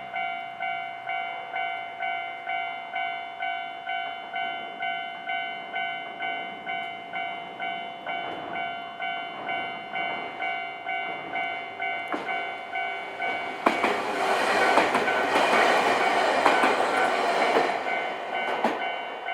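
Level crossing warning bell ringing in a steady, evenly repeated ding, about one and a half strikes a second. About two-thirds of the way in, a Nankai train passes over the crossing, loudly, its wheels clacking over the rail joints for a few seconds.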